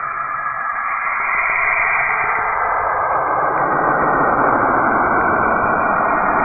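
Saturn's radio emissions converted to sound: a steady hiss with faint held tones above it. About three to four seconds in it swells louder and fills out lower down.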